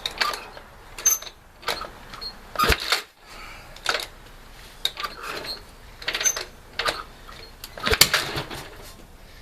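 Repeated metallic clanks and clatter, about one a second, from a 1965 Harley-Davidson XLCH Sportster being kicked over without the engine catching. Two heavier thumps come about a third of the way in and near the end.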